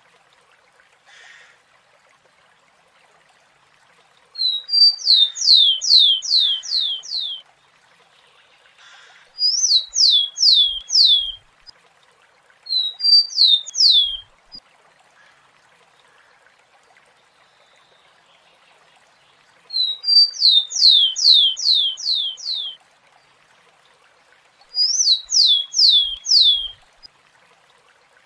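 Rufous-collared sparrow (tico-tico) singing: five song phrases, each one or two short high notes and then a quick run of five or six falling whistled slurs. A faint steady hiss sits beneath the song.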